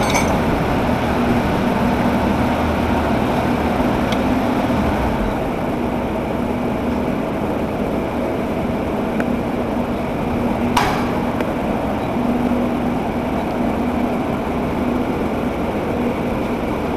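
Steady mechanical hum and noise, with a single sharp click about eleven seconds in.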